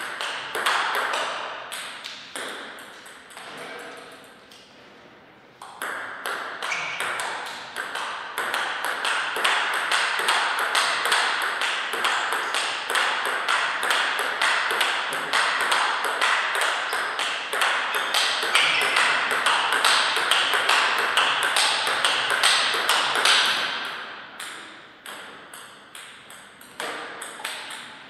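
Table tennis ball clicking back and forth between rubber paddles and the table in a long, fast exchange, several hits a second. The hitting pauses briefly about four seconds in, then runs on steadily and thins out near the end.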